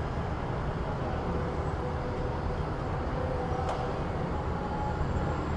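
City street ambience: a steady rumble and hiss of road traffic, with a single sharp click a little past the middle.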